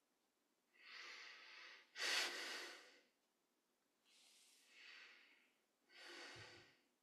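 A man breathing close to the microphone: four faint, airy breaths of about a second each, the second the loudest.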